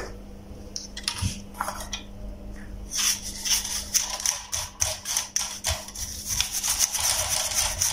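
Paintbrush bristles scrubbing over a bug zapper's wire grid and circuit board: a few light handling clicks, then from about three seconds in a dense, scratchy brushing of rapid strokes.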